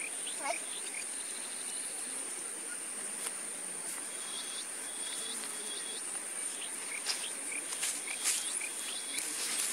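Insects droning steadily on one high note, with faint short chirps and clicks scattered through.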